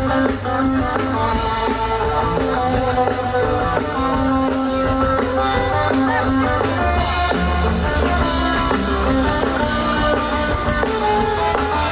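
Live pop-rock band playing an instrumental passage through a large outdoor PA, with guitar, bass and drums, heard from within the crowd.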